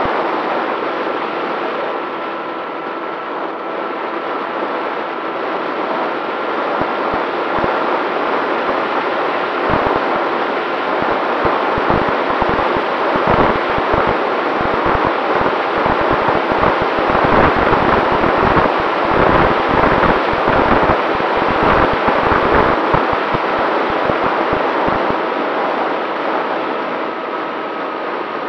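Motor and propeller of a radio-controlled model plane running steadily with a thin whine, picked up by its onboard camera, with wind gusting on the microphone through the middle of the stretch.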